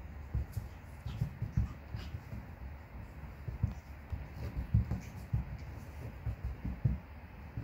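Soft, irregular thumps and scuffing on a woven rug as a puppy scampers and plays with a person's hand, with a few faint clicks.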